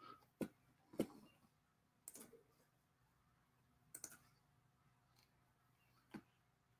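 Computer mouse clicking: about five sharp, separate clicks at irregular intervals over faint room tone, the loudest about a second in.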